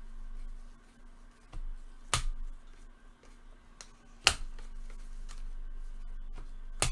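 Sharp snaps and clicks from handling trading cards and packs: three loud snaps about two seconds apart, with fainter ticks between them.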